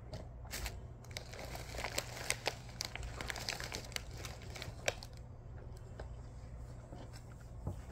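Crinkling and rustling handling noise with many small clicks and crackles, busiest in the first five seconds, with a few sharper clicks scattered through it.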